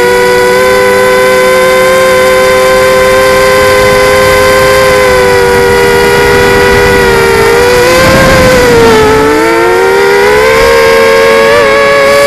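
Electric motors and propellers of a multirotor drone whining steadily, heard close up from the camera on the drone, with wind rushing over the microphone. About eight seconds in, the whine dips in pitch and climbs back as the motors slow and speed up again.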